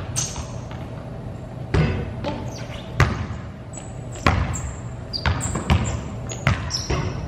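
Basketballs bouncing on a gym floor: separate echoing thuds, about one a second at an uneven pace, with a few short, high sneaker squeaks in between.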